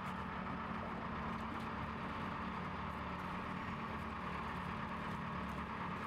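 A steady engine hum, an engine running at idle with an even low tone.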